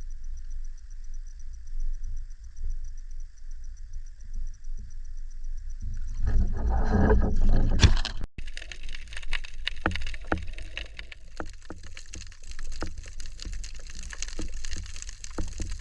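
Water moving around an action camera's housing, with a low rumble, swelling louder about six seconds in; from about eight seconds on, a dense crackle of sharp underwater clicks.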